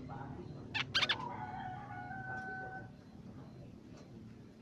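Crimson sunbird calling: a quick cluster of sharp, very high chirps about a second in. A longer, lower, even call of about two seconds follows.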